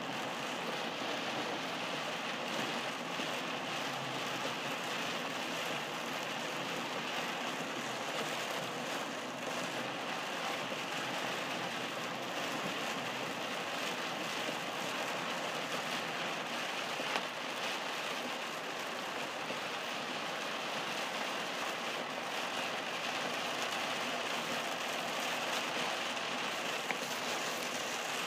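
Heavy rain beating on a moving car's windshield and roof, heard from inside the cabin, with steady road noise from the tyres on the flooded pavement. The sound stays even and unbroken throughout.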